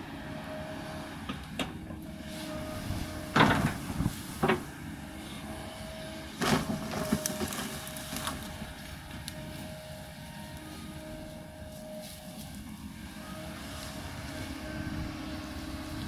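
Kobelco 220 excavator's diesel engine running steadily under load while its bucket digs into the hillside, with loud crunching knocks of steel on earth and rock: two a few seconds in and another, followed by a cluster of smaller ones, near the middle.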